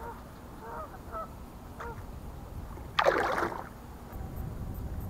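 A released largemouth bass splashing once at the surface as it kicks away from the kayak, about three seconds in. A few faint honk-like waterfowl calls come before it.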